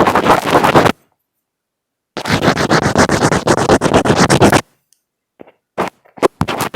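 Fingers rubbing and scratching directly on a microphone, in loud bursts of crackling friction: one ends about a second in, a longer one runs from about two seconds to four and a half, then come a few short scratches and another burst near the end.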